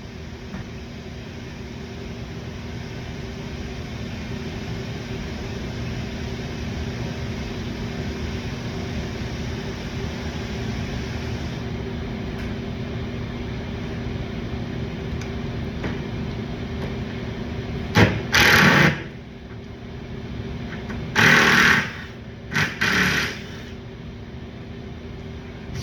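Steady mechanical hum in the shop, then about eighteen seconds in an impact gun runs in several short, loud bursts, driving the bumper's lower fasteners.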